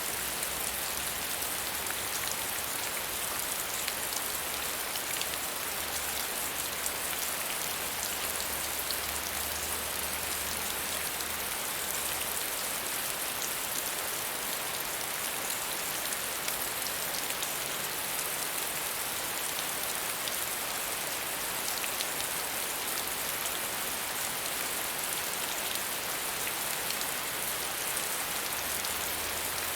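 Steady rain of medium strength falling on a surface, an even hiss dotted with many small drop ticks.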